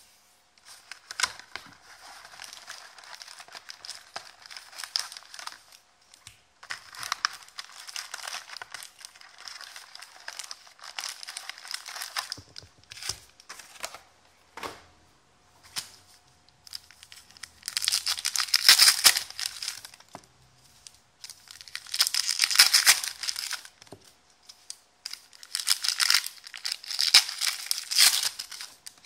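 Trading-card packs rustling and crinkling as they are handled and lifted out of their box. In the last third come three louder bursts of a pack wrapper being torn open.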